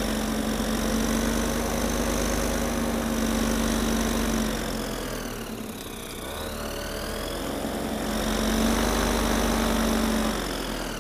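Paramotor trike engine and propeller running as the trike taxis on the ground. The revs dip about halfway through and come back up, then fall away near the end as the engine is throttled off.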